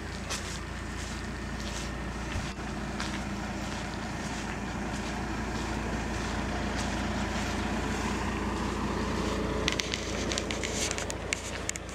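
Heavy-haul truck and multi-axle lowboy trailer on the move: a steady low engine hum with road and tyre noise, growing a little louder, then a run of sharp clicks and rattles near the end.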